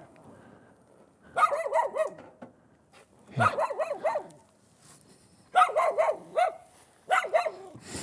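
A dog barking in four quick bouts of several barks each, with short pauses between them.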